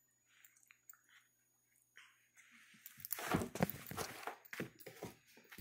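A few faint clicks, then from about three seconds in a run of loud rustling, scuffing and thumps close to the phone's microphone as it is jostled by play-wrestling pet macaques.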